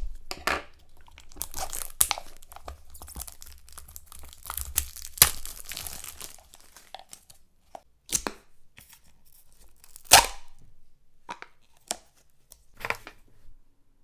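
Foil toy wrapper being torn and crinkled by gloved hands, a dense crackling rustle. After about seven seconds only scattered sharp crinkles and clicks follow as the plastic capsule is handled, the loudest about ten seconds in.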